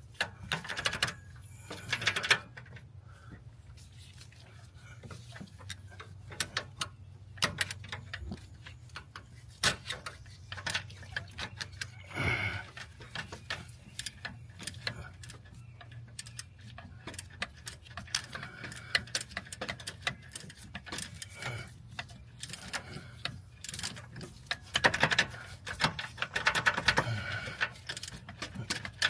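Hand ratchet wrench clicking in short runs and metal tools knocking while bolts on an AC compressor are worked loose, with irregular clicks and taps throughout and denser bursts of clicking near the start and near the end.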